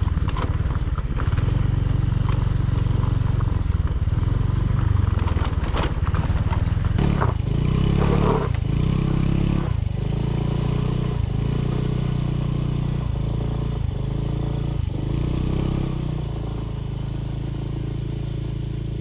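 Small motorbike engine running as it is ridden; the engine note climbs about seven seconds in, then dips and picks up again every second or so as the throttle is eased off and reopened.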